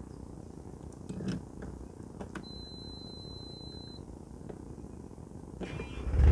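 Ignition key clicked on at a narrowboat's Canaline engine panel, and the panel's warning buzzer sounds one steady high beep for about a second and a half. Near the end the starter cranks and the boat's engine catches and starts running.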